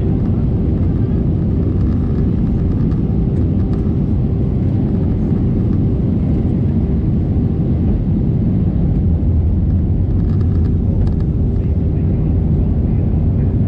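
Cabin noise inside an Airbus A320neo airliner in flight: a steady roar of airflow and engines with a constant hum.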